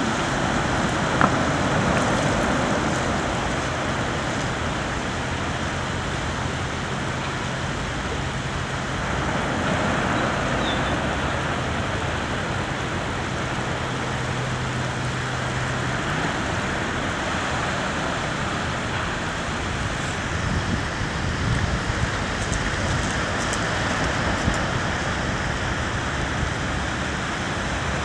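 Small sea waves breaking and washing up over a sandy beach: a steady, even hiss of surf.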